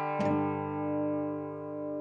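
Closing theme music ending on a final chord, struck about a quarter second in and left ringing as it slowly fades.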